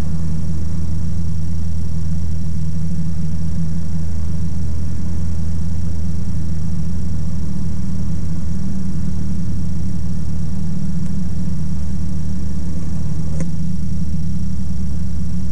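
Ikarus C42 microlight's engine and propeller running steadily in flight, heard from inside the cockpit. A faint click comes near the end.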